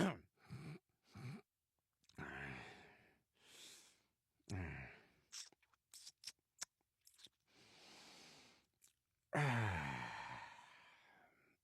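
A man's voice making wordless 'dad noises': a string of grunts, groans and sighs with short mouth clicks between them, ending in a long groan about nine seconds in that trails off.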